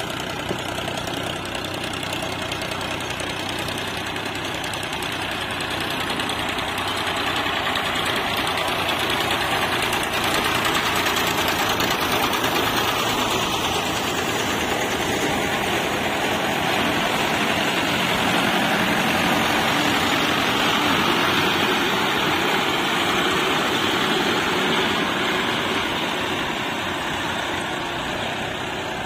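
Tractor diesel engine running steadily. It grows louder over the first several seconds, holds, then eases off a little near the end.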